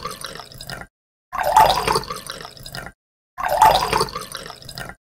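A short sound effect played three times in a row, each time the same: about a second and a half long, loudest at the start, then fading, with a brief silence between repeats.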